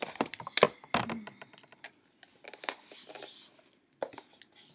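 A few sharp clicks and knocks with a short rustle about three seconds in: a hard-cased eyeshadow palette being picked up and handled.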